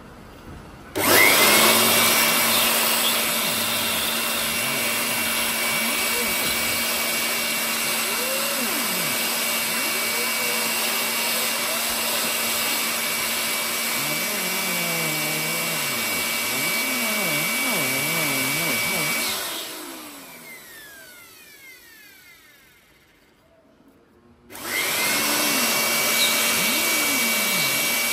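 Handheld air blower running steadily with a high whine, blowing dust out of a PC power supply's cooling fan. It switches on abruptly about a second in. About two-thirds of the way through it cuts out and winds down, falling in pitch, then starts again a few seconds later.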